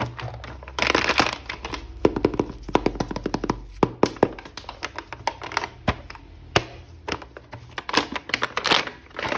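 Plastic toy packaging being handled and opened: rustling and crinkling, with many small clicks and knocks.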